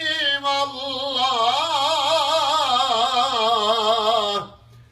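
A man's voice chanting a Turkish kaside, a devotional Islamic hymn, in a long melismatic phrase. The held notes waver quickly in ornamental trills, and the phrase dies away near the end.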